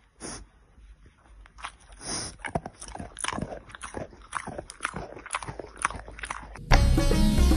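An animal crunching and chewing a hard round treat, a quick run of crisp crunches at about three or four a second. Loud music with a plucked, sitar-like sound comes in near the end.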